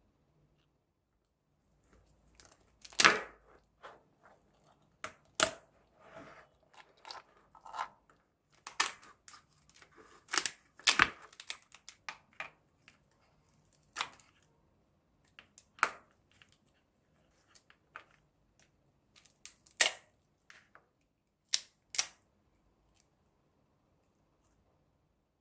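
Irregular sharp cracks, crunches and tearing of a cooked brown crab's shell and legs being broken apart by hand. The loudest snaps come about three, eleven and twenty seconds in, and it goes quiet in the last few seconds.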